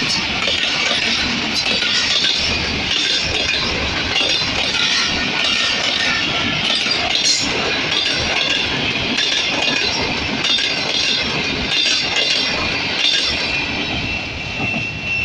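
Pakistan Railways passenger coaches passing close by at speed: a steady loud rush of wheels on the rails, broken by many short sharp clicks.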